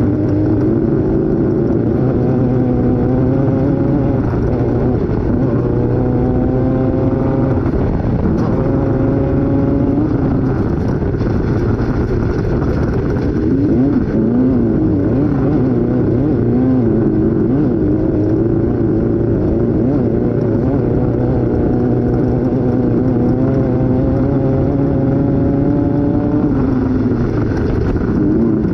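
Off-road race vehicle's engine running hard, its pitch climbing and dropping again and again with throttle and gear changes, over steady driving noise.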